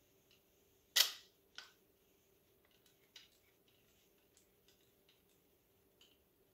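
Allen wrench and bolt clicking against the metal shifter housing as the bolt is fitted and turned in: one sharp click about a second in, a second one shortly after, then light scattered ticks.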